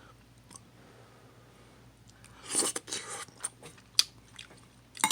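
A person eating hot ramen noodle soup: a loud, short slurp or mouthful about halfway through, then chewing with a few sharp clicks.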